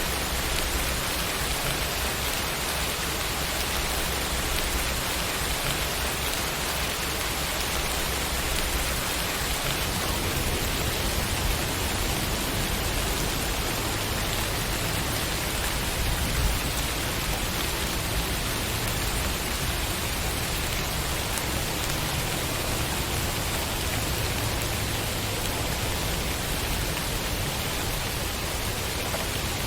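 Steady rain falling, an even hiss of drops on a surface with no pauses or distinct events.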